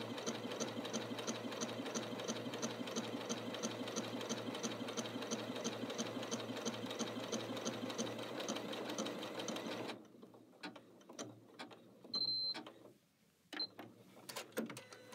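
Janome Skyline 6 computerised sewing machine stitching the satin-stitch side of an automatic one-step buttonhole, a steady, fast, even stitching rhythm that stops abruptly about ten seconds in as the buttonhole is finished. After it stop come a few clicks and short high beeps.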